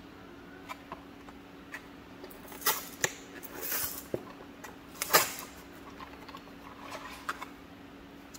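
Thin cardboard carton being torn open by hand along its perforated flap: a few sharp rips and crinkles in the middle, loudest about five seconds in, then lighter handling as a plastic cup is taken out.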